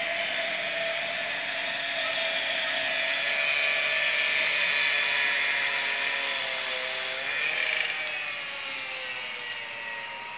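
S-Bahn electric multiple unit pulling out and accelerating away: its traction motors give a whine of several steady tones that shift in pitch about seven seconds in, then fade as the train draws off.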